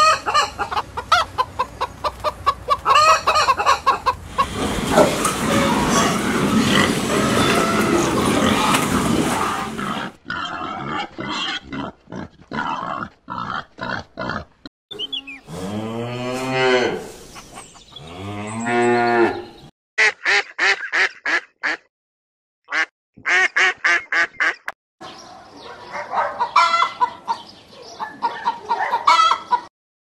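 A run of different animal sounds: chickens and a rooster clucking at the start, then other animal calls, among them two long calls that rise and fall in pitch around the middle, and later groups of short rapid calls.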